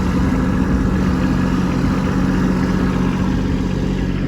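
Kubota B2601 compact tractor's three-cylinder diesel engine running at a steady speed while back-blading snow.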